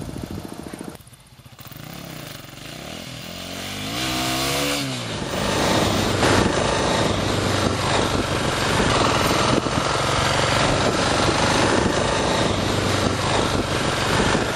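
Dirt bike engine running. Its pitch rises and falls with the throttle about three to five seconds in, and from about five seconds a louder rushing noise covers the steady engine as the bike rides.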